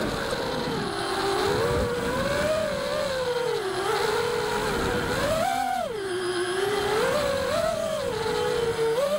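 Brushless motors and props of a 5-inch FPV racing quadcopter (Emax RS2205 2300kv motors) whining in flight. The pitch keeps rising and falling with the throttle, with a sharp climb about five and a half seconds in.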